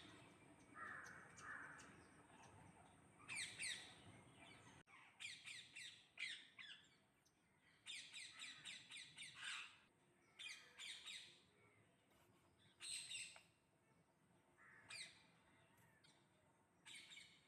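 Birds calling in short runs of rapid, harsh repeated notes, a run every second or two with quiet gaps between.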